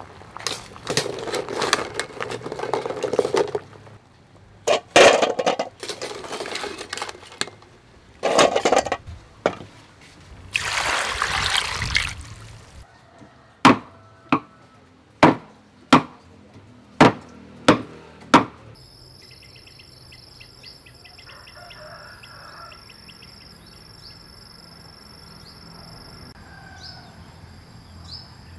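Several loud bursts of noise, then a cleaver chopping meat on a wooden chopping block: about seven sharp knocks roughly a second apart. After that, steady high insect trilling, with a few short chirps near the end.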